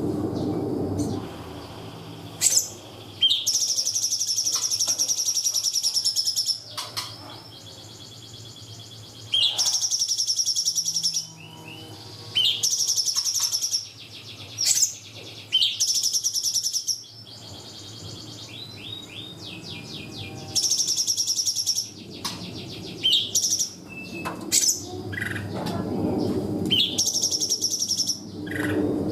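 A cungkok bird singing in loud, high-pitched shrill bursts of one to two seconds each, about eight of them with short pauses between, some interspersed with quick rapid trills: the 'tembakan' song bursts used as masteran to teach other songbirds.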